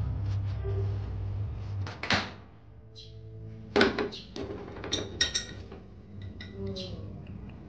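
Kitchen handling sounds: a spoon scraping and stirring potato fritter dough in a glass bowl, then sharp knocks and ringing glassy clinks as a swing-top glass bottle of cooking oil is handled and poured into a frying pan. A steady low hum runs under the first two seconds.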